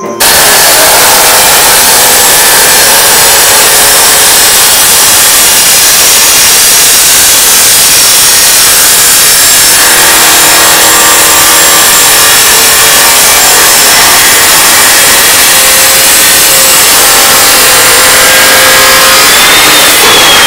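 Milwaukee abrasive chop saw cutting through 2-inch square steel tubing: a loud, steady grinding of the cut-off wheel through the metal that starts abruptly and stops near the end.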